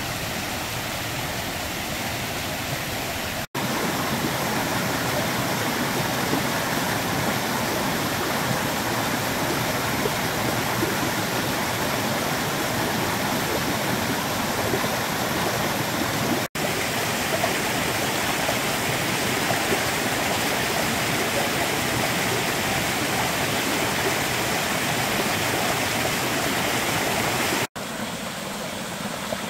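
Mountain stream running over rocks and small cascades, full after a rain shower: a steady rush of water. It breaks off three times very briefly, and is louder between the first and last breaks.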